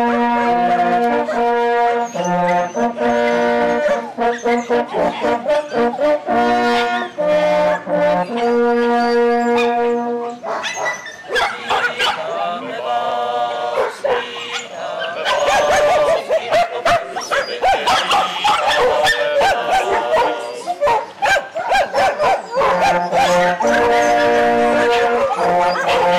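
A small ensemble of hunting horns plays a fanfare in held brass chords with short breaks between phrases. For a stretch in the middle, dogs bark loudly and continuously over the horns, before the clear chords return near the end.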